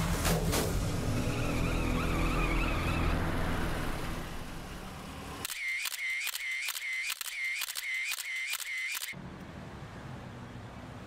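A low, steady vehicle engine rumble for about five seconds, then it cuts off. A camera shutter then fires rapidly, about nine clicks at roughly two and a half a second, for some three and a half seconds.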